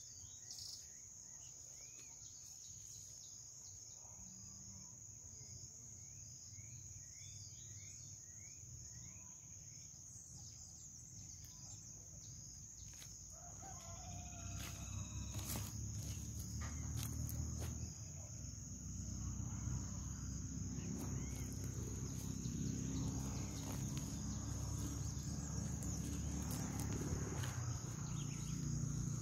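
A rooster crowing, with small birds chirping and a steady high whine. From about halfway a low rumbling noise builds and becomes the loudest sound.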